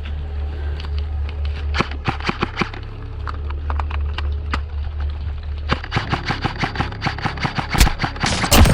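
Airsoft guns firing in rapid bursts of sharp shots over a steady low rumble. There is a short run of shots about two seconds in, then a faster stream from about six seconds in, and the loudest cracks near the end.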